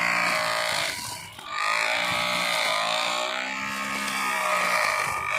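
Homemade grass cutter driven by a 775 DC motor whining as it cuts grass, its pitch sagging and recovering with the load; it briefly drops off just over a second in, then picks back up.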